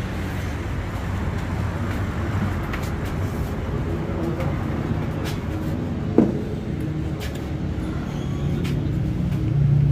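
Steady low mechanical rumble, like an engine running nearby, with one brief sharp sound that falls in pitch about six seconds in.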